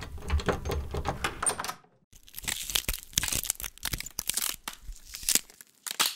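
Cartoon sound effect of a wall cracking and crumbling as cracks spread through it. Dense crackling with a low rumble underneath for the first couple of seconds, a brief pause, then more scattered sharp cracks and a short final burst near the end.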